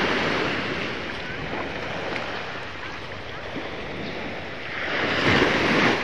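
Small waves breaking and washing up the sand close by, a steady rushing hiss that swells at the start and again, louder, near the end as a wave breaks right in front.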